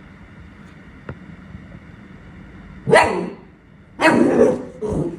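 Cavapoo puppy barking loudly: one bark about three seconds in, a longer one about a second later, and a short third bark just before the end.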